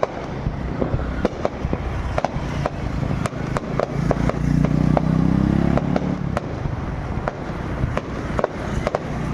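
Fireworks popping and crackling irregularly, with scattered sharp bangs throughout. A motor vehicle's engine drones past, loudest about four to six seconds in.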